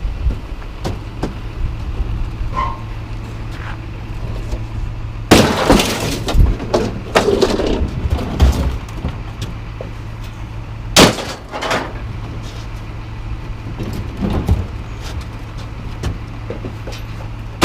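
Scrap being dumped from a load onto a pile, with smashing and clattering. There is a loud crash with clatter about five seconds in, a second sharp crash near eleven seconds, and smaller knocks between, over an engine running steadily.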